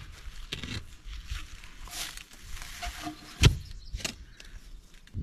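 Hand-tool digging and post-setting in soil: scattered knocks and scrapes from a manual post-hole digger and a wooden log post, with one loud thud about three and a half seconds in.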